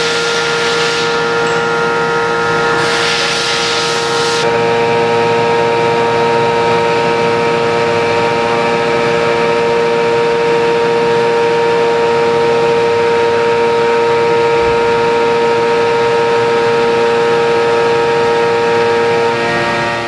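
CNC mill end mill slotting through Ampco bronze at about 7,000 rpm and 70 inches per minute: a steady cutting whine of several held tones over a noisy haze. It has two short surges of noise in the first four seconds.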